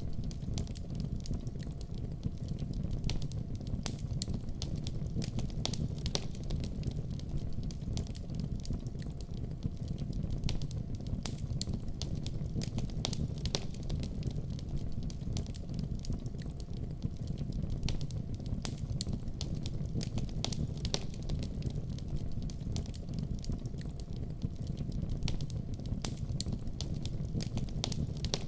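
Wood fire burning in a fireplace: a steady low rumble of flame with many small sharp crackles and pops scattered through it.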